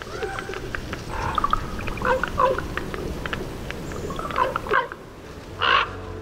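Common ravens calling: a run of sharp clicks and knocking sounds mixed with short pitched croaks, then a harsh call near the end.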